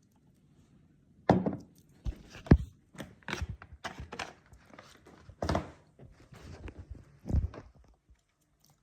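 About a dozen irregular knocks and clunks of things being handled and set down, starting about a second in, with the loudest near the start.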